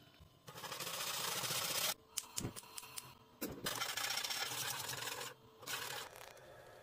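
Wire whisk beating a chocolate mixture in a saucepan: fast scraping in several stretches, with a few sharp clicks between.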